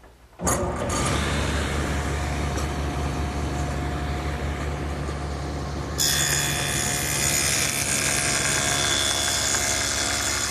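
Table saw fitted with a dado head starts up about half a second in and runs steadily. About six seconds in, the dado head starts cutting a rabbet along the edge of an oak panel, adding a louder, higher cutting noise over the motor.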